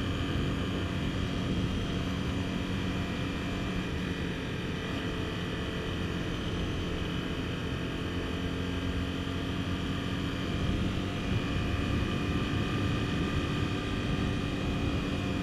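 Honda CBR250R motorcycle's single-cylinder engine running steadily as the bike cruises, over a steady rush of wind and road noise.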